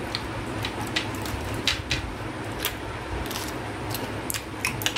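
Chewing on crispy fried chicken pakoras: irregular short crunchy clicks over a steady low hum.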